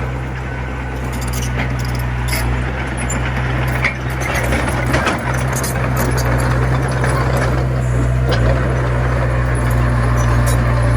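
Small Komatsu bulldozer's engine running steadily, with scattered metallic clanks and rattles.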